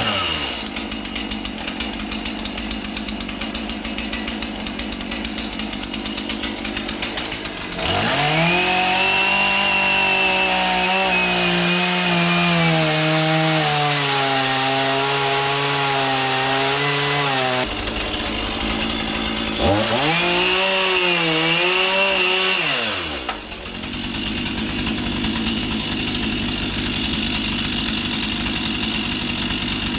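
Two-stroke chainsaw running at a low speed, then revved up high for about ten seconds with a wavering pitch while it cuts into the log. It breaks off, revs up again for a few seconds, and drops back to a low speed.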